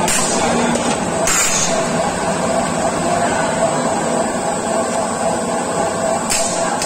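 Fully automatic blow moulding machine running with a steady, dense mechanical noise. Short hisses of compressed air come about a second in and again near the end.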